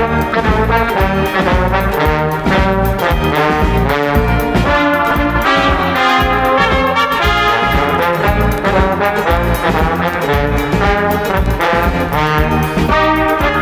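Brass-led band music, the title march: trombones and trumpets playing the tune over a steady beat.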